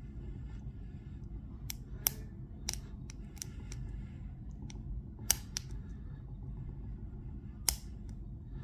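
Sharp metallic clicks from lock picks working the pins of a Master Lock Pro Series 6840 padlock. They come irregularly, with louder ones about two, five and eight seconds in.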